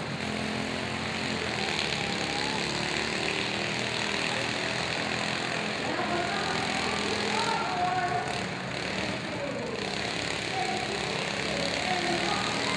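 Several riding lawn mower engines running together, some revving.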